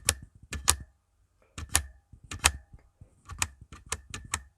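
Space bar on a mechanical keyboard with Gateron brown switches pressed and released about eight times, each stroke a sharp clack, a few of them quicker together near the end. The keystrokes demonstrate a switch that, to the owner, springs back up slowly under the heavy space bar.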